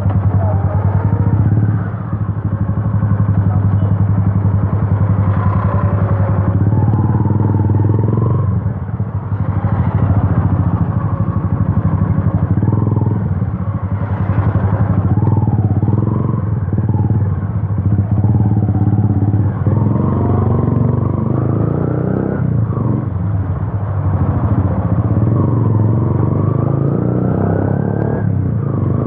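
Yamaha FZ V2's single-cylinder engine running loud through an Akrapovic exhaust with its dB killer removed, while riding; the revs climb and drop again and again.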